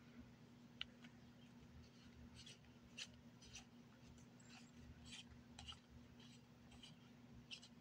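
Near silence: faint scattered clicks and rustles of a small plastic skincare tube being handled, over a low steady hum.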